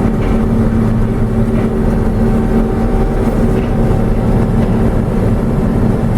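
John Deere 6620 sidehill combine running steadily under load while harvesting corn: a constant diesel engine and machinery drone with an even, unchanging hum.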